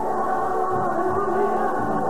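Gospel song: a young girl singing into a handheld microphone, with music and choir voices behind her.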